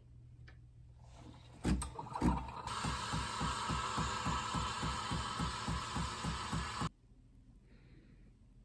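Breville espresso machine's steam wand frothing milk in a stainless jug: the pump pulses about five times a second under a steady hiss of steam, starting with a couple of louder thuds and cutting off suddenly.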